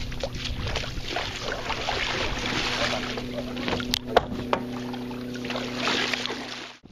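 Water splashing and sloshing as someone wades through shallow lake water towing a kayak, with a steady low hum underneath. Two sharp knocks about four seconds in.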